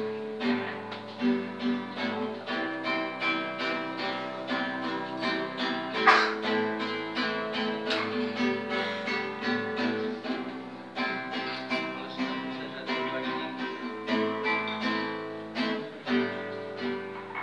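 Acoustic guitar strumming a song in a steady rhythm. A single sudden sharp click stands out about six seconds in.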